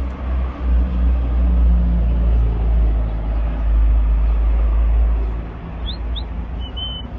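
Loud steady low rumble with a hiss spread over it, easing off about five seconds in. Near the end, two short high rising whistles and a brief high steady note.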